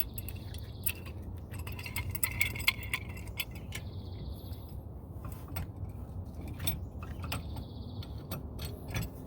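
Scattered metallic clicks and clinks of hand tools and brake parts being handled, light taps at irregular intervals.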